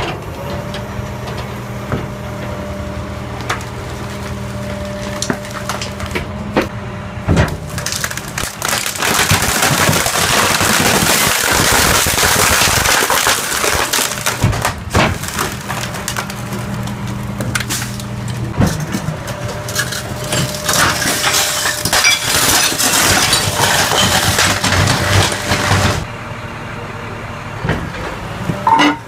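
Garbage truck's hydraulic compactor running with a steady engine-and-pump hum while the packer blade crushes the load in the hopper, with two long spells of dense crackling and crunching as things break under it.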